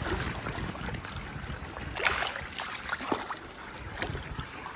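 Rainwater running and trickling through a drain partly blocked with leaf litter and sticks, with a few short splashes about two, three and four seconds in.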